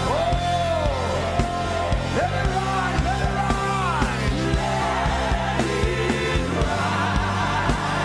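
Live gospel worship music: a lead voice sings sliding, wordless lines over a band's steady sustained chords and bass, with regular drum hits.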